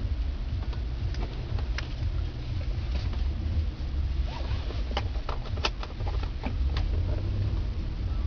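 Low, steady rumble of a 2007 Cadillac Escalade heard from inside the cabin as it sets off on a drive. Scattered light clicks and taps come through, mostly in the second half.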